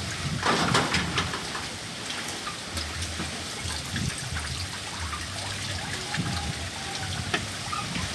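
Strong wind blowing and buffeting the microphone with a low rumble, mixed with scattered rustling and light clicks, louder in a gust about half a second in.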